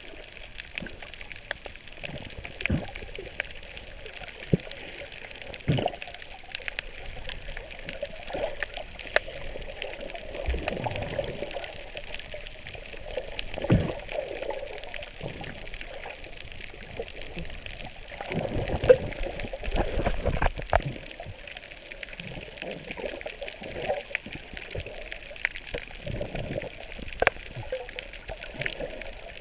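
Muffled underwater water noise: gurgling and bubbling with scattered clicks and knocks. It is busiest and loudest about two-thirds of the way through.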